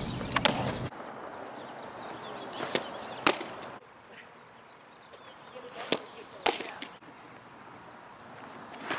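Softball pitches smacking into a catcher's mitt: sharp smacks in pairs a little over half a second apart, twice, over faint outdoor background.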